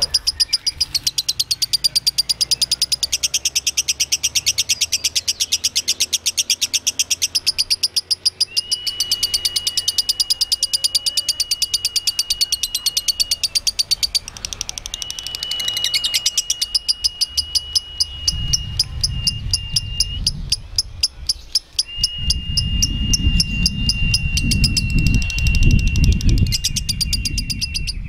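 Lovebird chattering in a long, fast, unbroken trill of high notes, about ten a second, with only brief pauses: the sustained 'ngekek' song that lovebird keepers prize. A steady high tone sounds in three long stretches alongside it, and a low rumble builds near the end.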